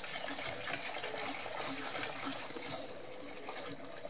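Water pouring in a steady stream from a plastic jug into a stainless steel basin of rice, filling it to wash the rice.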